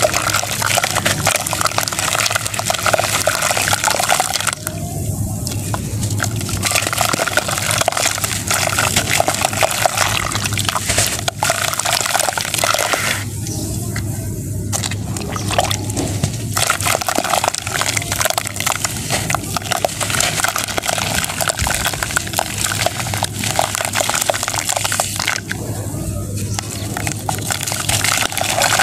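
Dried red sand-cement chunks crushed and crumbled by hand into a bucket of water: a continuous gritty, crunchy crackle of falling grains mixed with wet splashing and sloshing, with three short lulls.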